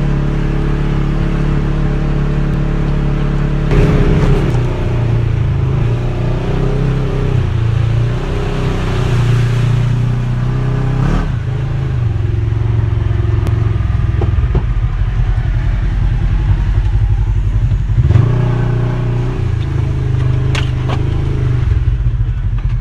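Vehicle engine running continuously, revving up and shifting pitch several times, about 4, 11 and 18 seconds in, with a few sharp knocks near the end.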